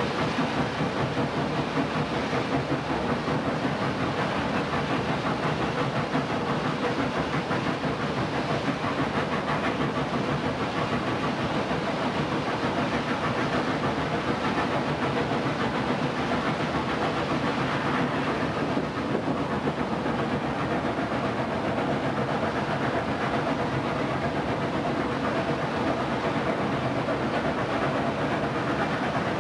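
Steady running noise of a moving train, a continuous rumble with hiss.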